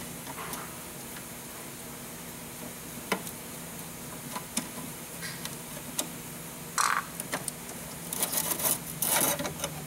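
Hand-tool work on a fuel filter bracket: a few light clicks from a Phillips screwdriver loosening the bracket screw. Near the end come scraping and rustling as the metal fuel filter canister is worked out of its bracket, all over a steady low hum.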